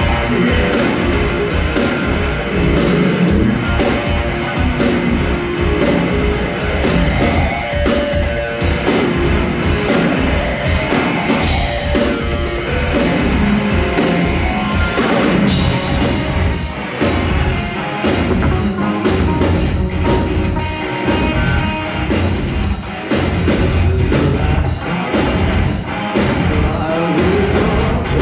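Live metal band playing loudly, with distorted electric guitars, bass guitar and a drum kit hitting steadily.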